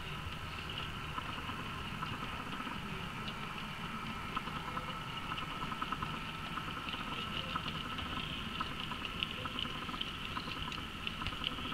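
Model train of open wagons rolling past on model railway track, the wheels clicking over rail joints in quick irregular ticks that grow more frequent near the end, over a steady high whine and a low rumble that fades early on as the locomotive moves away.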